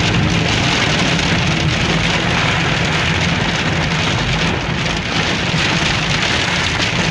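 Heavy rain pouring down on a car's roof and windshield, heard from inside the moving car, with the steady low hum of the engine and tyres underneath.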